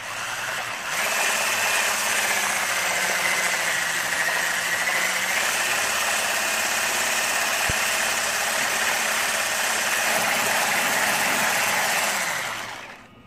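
Electric hand mixer running steadily, its beaters whipping cream to stiff peaks. The motor whine sags briefly in pitch a few seconds in, and the mixer winds down and stops about a second before the end.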